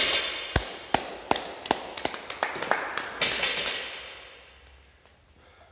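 A dropped barbell loaded with rubber bumper plates bouncing and rattling on the floor as it settles, a string of sharp knocks that come quicker and fainter until they stop about three seconds in.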